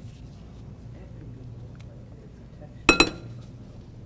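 Two quick clinks, a kitchen utensil knocking against a bowl and ringing briefly, about three seconds in, over a low steady hum.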